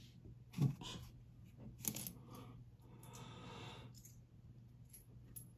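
Old coins, Liberty Head nickels among them, set down and clicking lightly against other coins on a cloth-covered table: a few scattered small clicks, with a soft sliding rustle about three seconds in.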